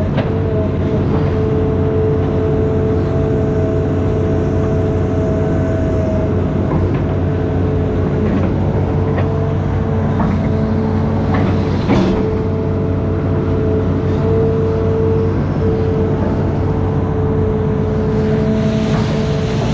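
Amphibious excavator's engine running steadily with a constant whine, and a few short knocks, the strongest about twelve seconds in.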